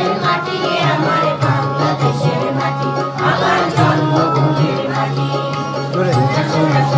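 A group of children and adults singing a Bengali song together in unison, with instrumental accompaniment underneath.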